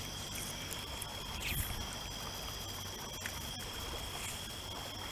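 Quiet lakeside background: a steady high chirring of insects, with a faint low rumble and a couple of faint clicks.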